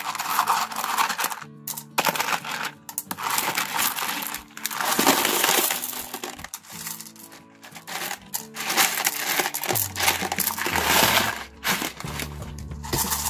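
Small rough crazy lace agate stones clattering against each other as they are dropped by the handful into a rubber rock-tumbler barrel, in repeated bursts of rattling.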